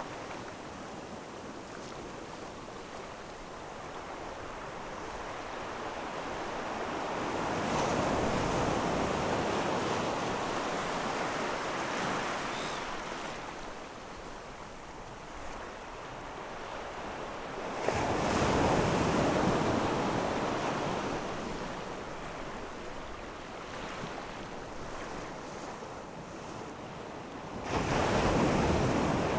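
Small waves breaking and running up a rocky, pebbly shore, the surf swelling and fading in slow surges. The loudest surges come in sharply about 18 seconds in and again near the end.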